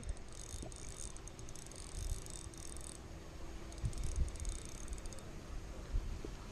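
Fishing reel being cranked in on a hooked fish: fast, light ticking in two runs, the first stopping about three seconds in and the second about five seconds in, with a few low handling bumps.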